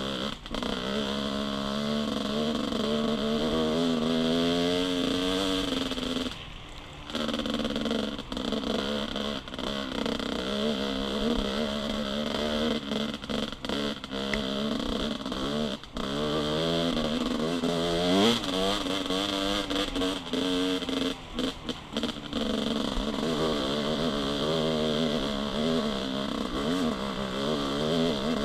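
Dirt bike engine heard from the rider's seat while riding a rocky trail, its pitch rising and falling with the throttle. It cuts out briefly about six seconds in and revs up sharply about two-thirds of the way through.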